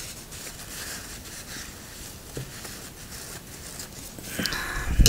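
Paper towel rubbing and wiping a watercolour palette's mixing well clean: a soft, scratchy scrubbing with light taps. Near the end it gets louder and ends in a low thump.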